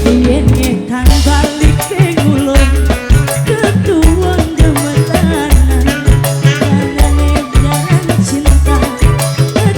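Dangdut band music played loud: a heavy bass beat and busy percussion under a wavering melody line.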